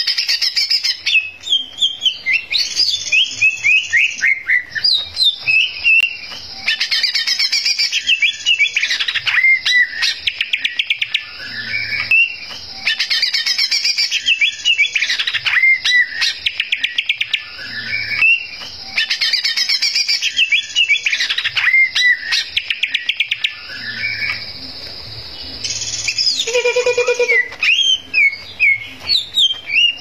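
Male green leafbird (cucak ijo) singing loudly and almost without pause: a fast, varied run of whistles, sweeping notes and rapid trills, with one short lull near the end.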